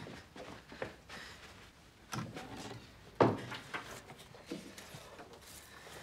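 A few footsteps on a wooden floor, then a wooden cabinet being opened, with a sharp knock about three seconds in, followed by lighter knocks and clicks as things are handled inside it.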